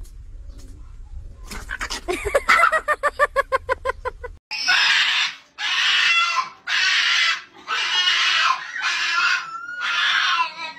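A small dog screaming in distress at being left behind: a string of loud, shrill, squeal-like cries, each just under a second long, about one a second. Before them comes a fast run of short, pitched yelps.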